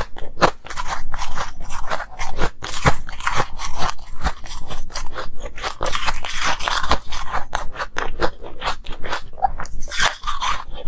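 Close-miked chewing of frost-covered ice: dense, irregular crunching and cracking as the frozen chunks break between the teeth.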